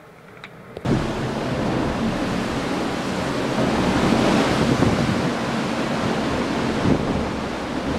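Gale-force wind buffeting the microphone over the rushing of high seas, cutting in abruptly about a second in and staying loud with gusty surges.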